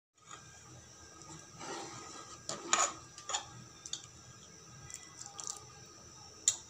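Steel ladle stirring thin goat-head curry in a metal pot: the liquid sloshes, and the ladle clinks against the pot several times, loudest a little under three seconds in and again near the end.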